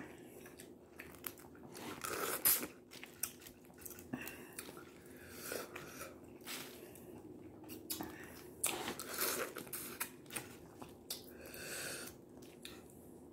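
Boiled crawfish being eaten up close: irregular chewing and crunching, with the shells cracked and peeled by hand in short clicks and bursts.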